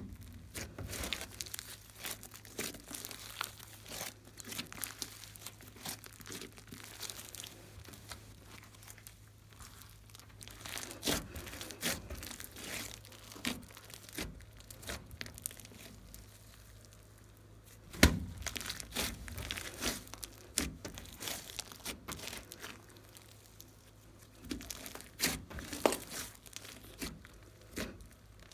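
A large mass of glossy slime mixed with small beads being kneaded and pulled apart by hand: sticky crackling and small pops, with a few sharper pops, the loudest about two-thirds of the way through.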